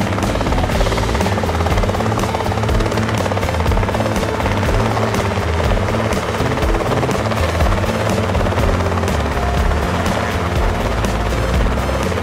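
Robinson R22 piston helicopter hovering low and setting down on its skids, with the steady beat of the main rotor and the engine running throughout.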